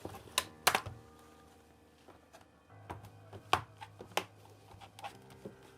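Irregular sharp clicks and knocks, about seven over a few seconds, from laptop parts being handled while working on the laptop's CD-ROM drive.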